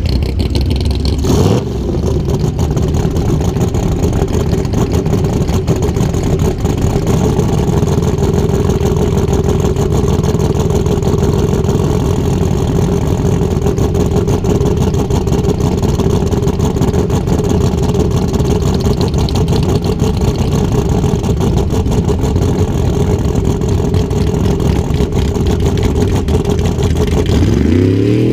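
Turbocharged drag car engine idling steadily, heard up close from its own engine bay; near the end it begins to rev up.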